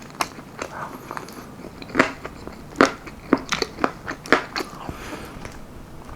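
Close-miked chewing of almond-flour-breaded baked chicken wings: a run of sharp, crunchy clicks and mouth sounds, densest and loudest from about two to five seconds in.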